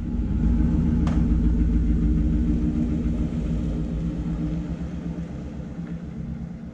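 GMC Yukon XL SUV's V8 engine running just after starting, fading steadily as the SUV drives away. A single short, sharp click about a second in.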